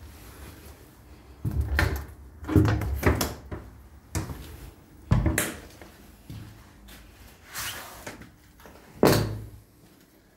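Doors in a derelict building being pushed and handled: a series of sudden knocks, bangs and clatters a second or two apart, with a louder bang near the end.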